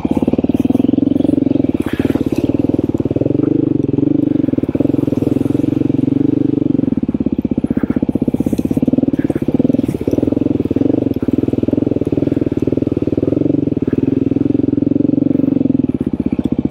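Beta off-road dirt bike engine running steadily while riding along a trail, with a few brief knocks.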